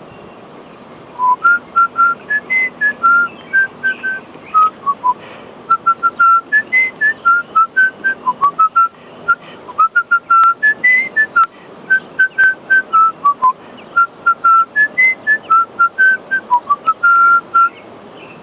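A person whistling a short melody in clear, separate notes, the same phrase repeated about four times.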